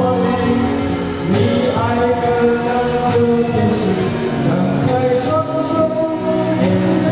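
A man singing into a handheld microphone over musical accompaniment, in long held notes.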